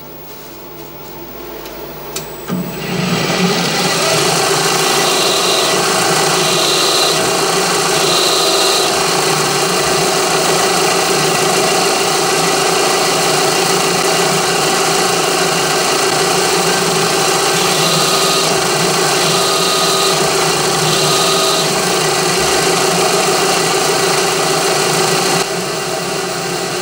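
Milling machine spindle running an engine-turning tool pressed into fine valve-grinding paste on a cast aluminium plate, the abrasive grinding a swirl pattern into the metal. It starts after a few clicks about two to three seconds in, runs steadily, and drops a little in level near the end.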